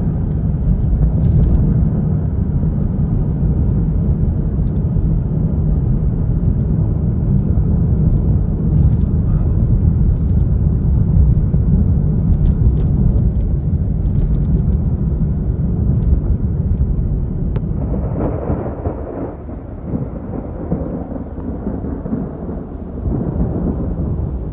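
Steady low road rumble of a car driving on a rough country road, heard from inside the cabin, with a few faint clicks. About eighteen seconds in it gives way to a softer, uneven rushing noise.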